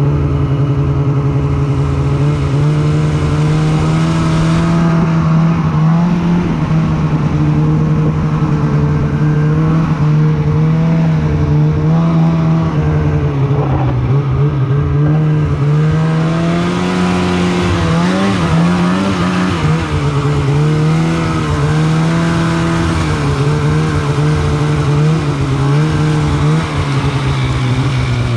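Polaris Pro RMK 800 snowmobile's two-stroke twin engine running under way, heard from the rider's seat. Its pitch rises and falls as the throttle is worked, and a hiss of track and snow grows stronger about halfway through.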